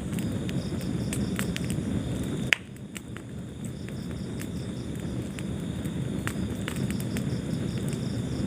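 Wood fire burning in a fireplace: a steady low rumble of flames with frequent sharp crackles and snaps, and one loud pop about two and a half seconds in, after which the rumble briefly drops away.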